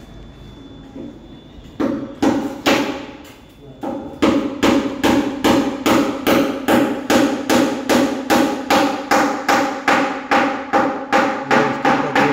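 Hammer blows: a few strikes about two seconds in, then a steady run of nearly three blows a second, each with a short ringing tone.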